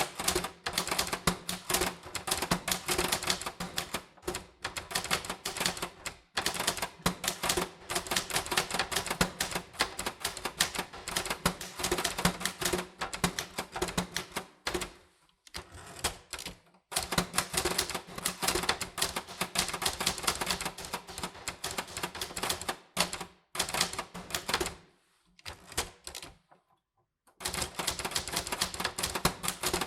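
Typewriter keys striking in rapid runs, click after click, with short breaks a little past halfway and again near the end.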